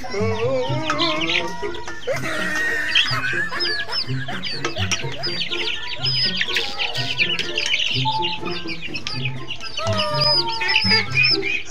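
A flock of chicks peeping rapidly and without pause, many short high falling chirps overlapping, with some clucking among them. Background music with a steady beat runs underneath.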